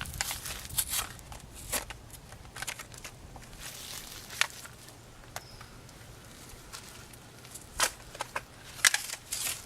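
Packaging of new headlight bulbs being torn open by hand: irregular crackling and rustling with sharp snaps, a cluster of louder snaps near the end.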